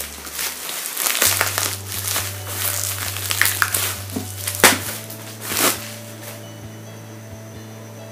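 Clear plastic packaging bag crinkling and crackling as it is handled and a boxed microphone is worked out of it. The crackles come thick for about six seconds, then die down.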